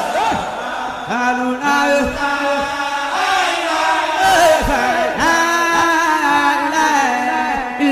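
Background vocal music: voices chanting a sung melody without pause.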